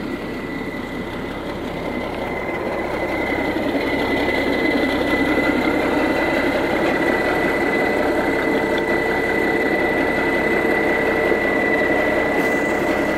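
Railway inspection car's engine idling steadily, with a thin high whine over the running. It grows louder over the first few seconds, then holds steady.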